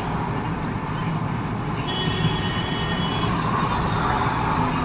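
Steady road and engine noise inside the cabin of a car moving in traffic.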